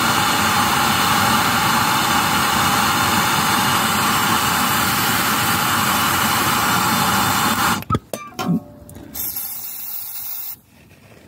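Handheld blowtorch flame running steadily as it heats a rusted-in exhaust temperature sensor to free it. It cuts off abruptly about eight seconds in, followed by a few knocks and a short hiss of penetrating oil sprayed from an aerosol can.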